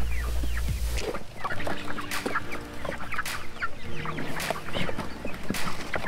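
A batch of young chickens chirping and clucking in many short calls as they are tipped out of plastic tubs and baskets, with scattered knocks from the tubs being handled.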